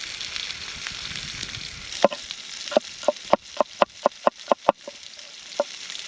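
A steady hiss, then from about two seconds in a run of sharp, ringing taps, about three to four a second.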